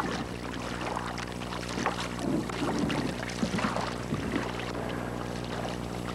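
Canoe paddle working in flat water during draw strokes, with irregular splashes, drips and gurgles, over a steady low hum in the soundtrack.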